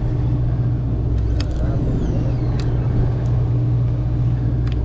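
Sportfishing boat's engine running with a steady low drone, with a few sharp clicks on top.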